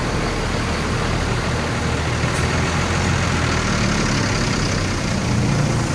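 Intercity coach's diesel engine running steadily at low speed close by, a constant low hum.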